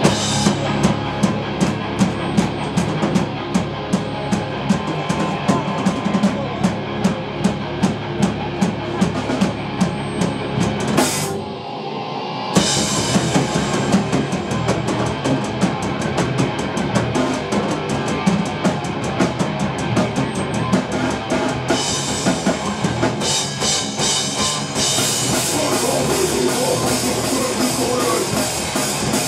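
A live metal band (drum kit, distorted electric guitars and bass) playing a song. It opens on a steady drum beat of about two to three hits a second, has a cymbal crash and a brief thinning about eleven seconds in, then goes into denser full-band playing with heavier cymbals in the last few seconds.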